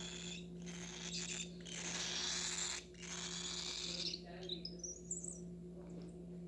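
Baby cockatiel making raspy, hissing begging calls in several stretches about a second long, then a few short rising chirps about four to five seconds in.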